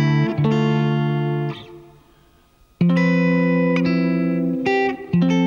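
Electric guitar, Stratocaster-style, playing wide-interval open chord voicings, each chord struck and left to ring. About four chords sound, and the sound dies away for under a second before the next chord about three seconds in.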